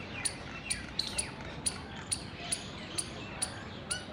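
Indian palm squirrel calling with sharp, high-pitched chirps repeated steadily, about two to three a second.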